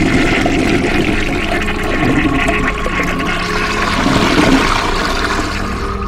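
Toilet flushing in a tiled restroom: a loud, steady rush of water that starts and stops abruptly.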